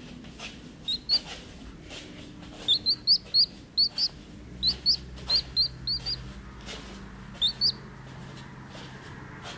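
Two-day-old chicken chick peeping: short, high cheeps that rise in pitch, in quick runs of two to five with short pauses between.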